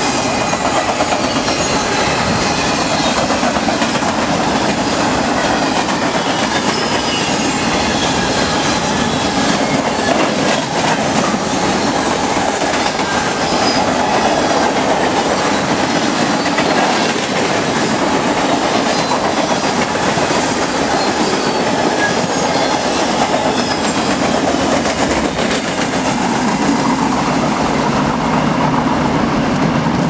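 Freight cars (autoracks and covered hoppers) rolling past close by: a loud, steady rush of steel wheels on rail with constant clattering clicks, and a faint squeal from the wheels at times.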